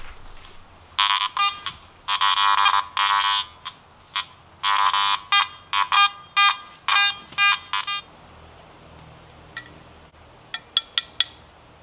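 Garrett AT Gold metal detector sounding a run of buzzy beeps of varying length as the coil sweeps over buried metal, stopping about eight seconds in. A few sharp clicks follow near the end.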